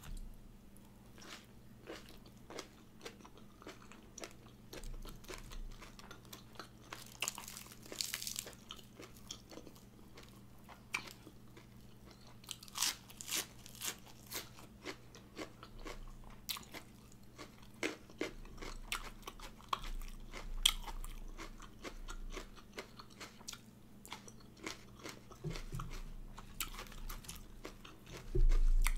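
Close-up chewing and crunching of a lettuce wrap filled with spicy raw shrimp salad, with irregular wet mouth clicks, and a louder bump near the end.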